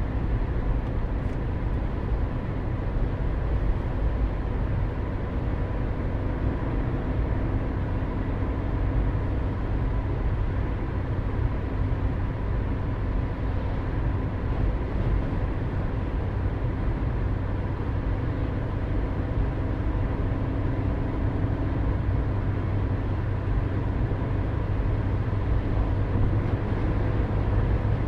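Steady road and engine noise of a car driving on a highway, a continuous low rumble with a faint steady hum over it.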